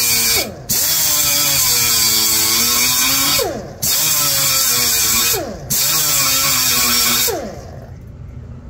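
Power grinder running on sheet-metal body panel, loud and hissy, its motor pitch sagging under load. It cuts out briefly three times, starts again each time, and stops near the end.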